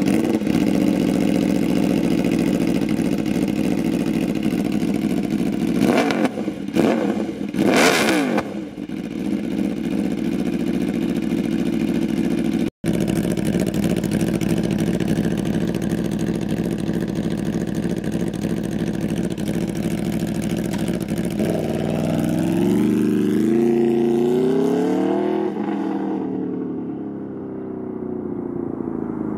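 2017 Aprilia RSV4 RR's V4 engine, breathing through an SC Project slip-on exhaust, idling just after start-up, with two quick throttle blips about six to eight seconds in. Later the bike pulls away, its revs rising in steps, then the sound drops and fades as it rides off.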